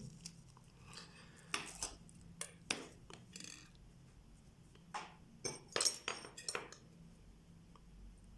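Small metal clicks and clinks from watchmaker's tools and tiny parts being handled on a hard work surface while a Vostok Amphibian watch is taken apart. There are about nine sharp clicks, scattered with a couple of short clusters around the middle and later on.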